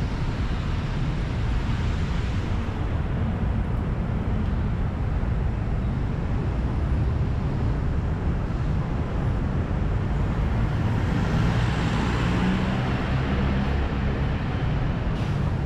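Road traffic: cars running along a multi-lane city street, a steady low rumble, with one vehicle passing louder about eleven to thirteen seconds in.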